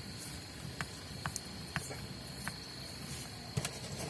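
Scattered light clicks and taps of small plastic sander parts being handled and fitted during reassembly, over a steady high-pitched whine.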